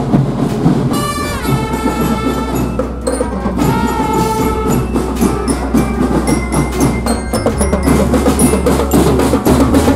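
Marching drum band playing: trumpets sound held notes through roughly the first half, then bell lyre notes ring out over the drums, which keep a steady beat throughout.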